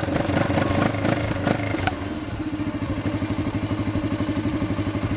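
Four-wheeler (ATV) engine idling through a newly fitted muffler, its exhaust giving a rapid, even pulsing. There are a few irregular knocks in the first two seconds.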